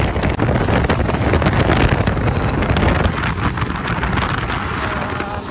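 Wind buffeting the microphone: a loud, uneven rushing rumble.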